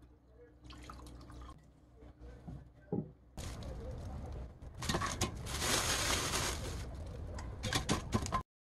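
Water running or being poured in a kitchen, starting about three seconds in after a few small knocks, louder from about five seconds, and cutting off abruptly just before the end.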